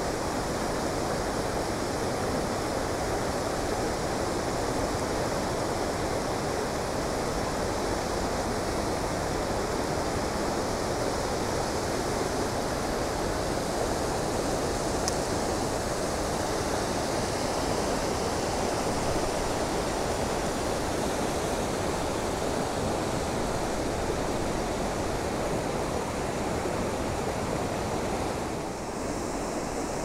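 Waterfall rushing: a steady, unbroken roar of falling water.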